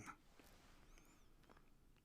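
Near silence: room tone, with one faint high squeak or chirp about a second in.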